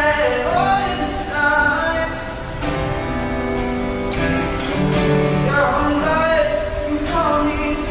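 A man singing long, sliding notes over a strummed acoustic guitar, with a rain sound effect mixed in as a steady hiss underneath.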